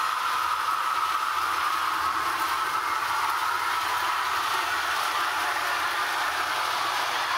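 H0-scale model Amtrak diesel passenger train running up a grade, giving a steady running noise with an even hum.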